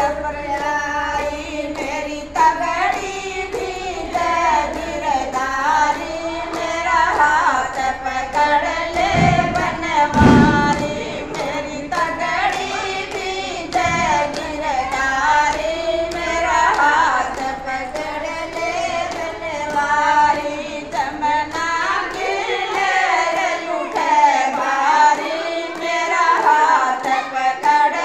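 Gujari folk bhajan sung to a steady percussion beat, the voice gliding through long held phrases. Two low thumps stand out about nine and ten seconds in.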